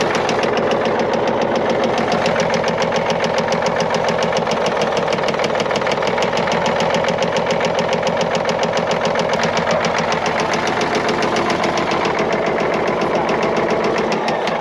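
Caterpillar 977L's 10.5-litre six-cylinder diesel running unmuffled with its number 5 injector line cracked open to cut that cylinder, a rapid even beat. The engine has a knock being traced cylinder by cylinder, with cylinder 6 already found dead.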